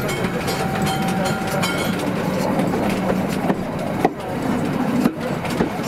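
Wheels of a narrow-gauge railway wagon rolling along the rails, a steady rumble with a few sharp knocks from the wheels on the track between about three and a half and five seconds in.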